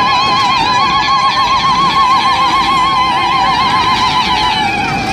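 Ululation (zaghrouta): a high trilling cry held for about five seconds, its pitch wobbling rapidly and evenly, with a second, steadier voice just below it. Both stop shortly before the end. It is the celebratory cry of a welcoming crowd.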